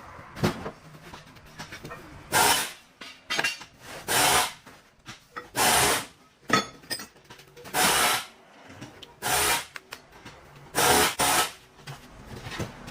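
A power tool run in short bursts: about six loud bursts of under a second each, roughly every one and a half to two seconds, with shorter blips between.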